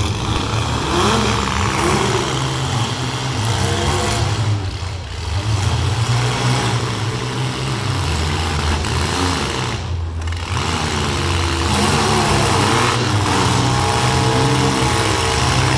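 Several compact demolition-derby cars' engines running and revving together, their pitch rising and falling over a steady loud drone.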